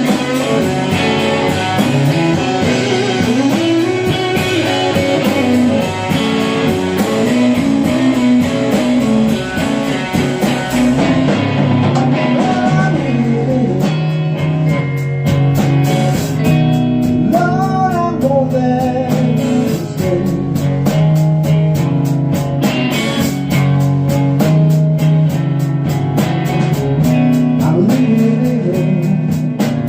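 Slow blues in G: an electric guitar plays a lead solo full of string bends over bass and a steady drum beat.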